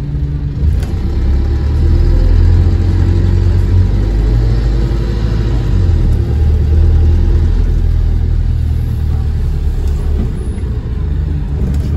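A London bus's engine and running gear heard from inside the passenger saloon as the bus pulls away and drives on. The engine note swells about a second in, stays strong for several seconds, then eases off near the end.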